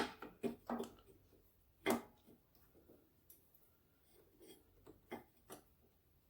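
A few scattered light clicks and knocks of a carburetor and its fittings being handled, as the carburetor is turned and worked into place on the engine. One knock about two seconds in stands out; the rest are faint.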